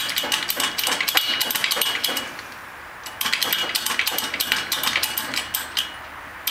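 Steel parts clinking and rattling against each other in two runs of quick clicks, with a short lull about two seconds in: a socket and a heavy steel pipe being set on the supercharger snout shaft and positioned on the plates of a shop press.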